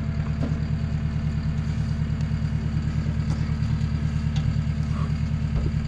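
A motor vehicle's engine idling steadily, with an even low pulsing.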